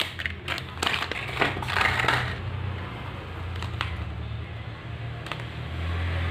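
Clear plastic packaging crinkling and crackling as it is handled, dense for about the first two seconds, then a few light clicks and paper rustles from boxes and leaflets. A steady low hum runs underneath.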